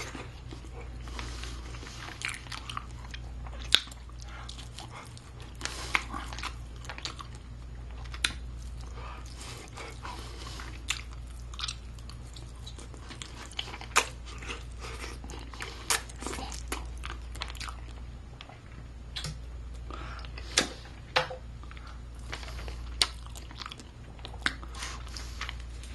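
A person biting into and chewing a baked chicken drumstick close to the microphone, with irregular short clicks from the mouth and teeth.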